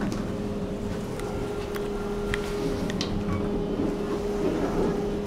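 Steady hum inside a Kone elevator cab, two even tones over a fan-like whirr, as the car's sliding doors close; a few light clicks.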